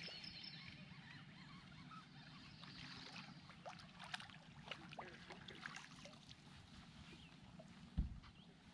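Faint splashing of a hooked largemouth bass thrashing at the surface as it is reeled to the boat, with scattered small ticks. A single dull thump comes near the end as the fish is lifted aboard.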